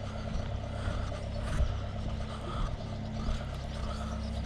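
Farm diesel engine running steadily.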